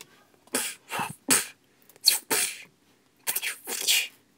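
A person making mouth sound effects for a toy fight: about seven short, breathy hissing bursts, with gaps between them.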